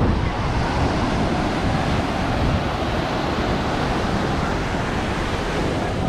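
Ocean surf breaking and washing up the sand, a steady rushing noise, with wind rumbling on the microphone.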